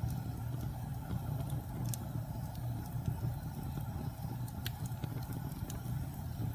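Wood fire burning in a fireplace: a steady low rumble from the flames, with a few sharp crackles and pops from the burning wood.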